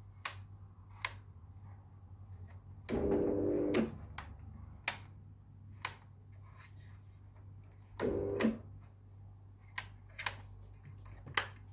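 A dog whining in two drawn-out moans, one about three seconds in lasting nearly a second and a shorter one about eight seconds in, over a low steady hum and scattered light clicks.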